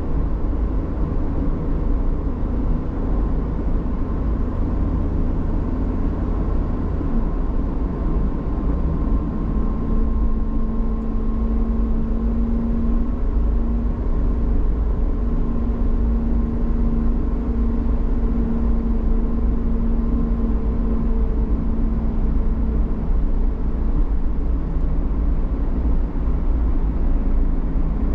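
Motor vehicle driving on a road: steady low engine and road rumble, with a steady hum standing out from about nine seconds in until just past twenty seconds.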